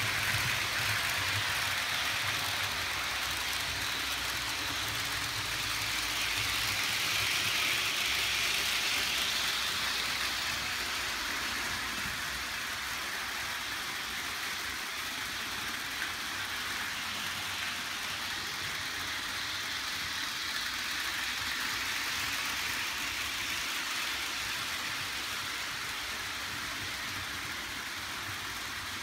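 Several HO scale model trains running at once: a steady whir of small electric motors and metal wheels rolling on the track, swelling a little several seconds in.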